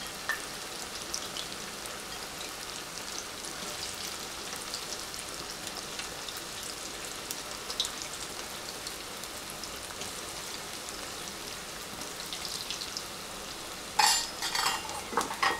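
Batter-coated cauliflower florets deep-frying in hot oil in a wok: a steady sizzle with scattered crackles. Near the end come a few loud, ringing clinks.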